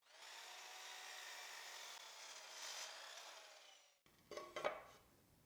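Power saw cutting through a cedar board: a steady sound with several held tones, rising a little near the end and stopping abruptly about four seconds in. A few short knocks of wood follow.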